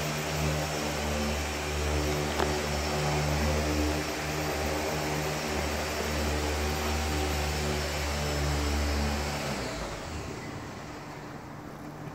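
Griot's Garage BOSS random orbital polisher running steadily as it buffs compound into oxidized fiberglass gel coat: a low motor hum with a whirring hiss. It is switched off about ten seconds in and winds down.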